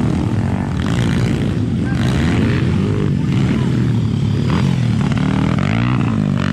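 Motocross dirt bike engines revving on a dirt track, their pitch rising and falling several times as the riders open and close the throttle through the turns.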